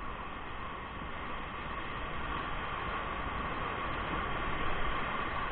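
Steady rushing roar of whitewater rapids, growing slowly louder as the raft drifts toward them.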